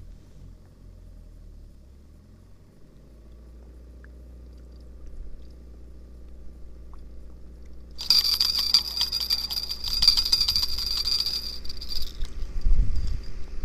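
Spinning reel being cranked for about four seconds, a fast rattling whirr as line is wound in, starting about two-thirds of the way through after a stretch of faint low rumble. A few low rumbles of handling follow near the end.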